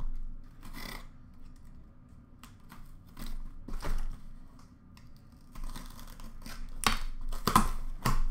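A cardboard box being handled and opened by hand: scattered rustles, scrapes and taps of cardboard, busier in the last few seconds with a few sharp knocks as the flaps are pulled open.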